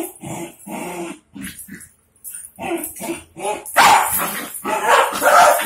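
Two dogs barking and yipping in short bursts while play-fighting, louder from about four seconds in.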